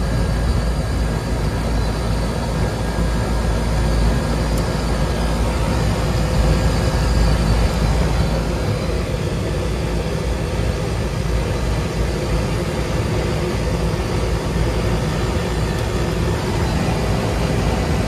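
Carrier rooftop air-conditioning unit running, its compressor and condenser fan making a loud, steady whooshing hum that is heaviest in the low end.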